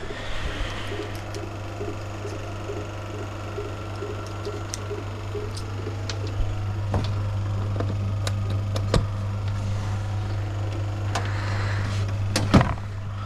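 Steady low electrical hum from a cinema sound system while the film projector's audio cable is unplugged and reconnected, with no film soundtrack coming through. Scattered handling clicks, and a louder knock near the end.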